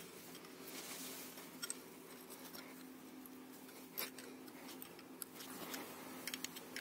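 Faint metallic clicks and scrapes of an open-end wrench turning a long screw into a wall plug in brick, a few at a time, the clearest about four seconds in and a quick cluster near the end, over a faint steady hum.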